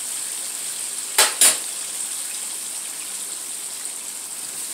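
Pig feet deep-frying in a skillet of hot oil, a steady sizzle of popping grease. Two sharp clicks come close together a little over a second in.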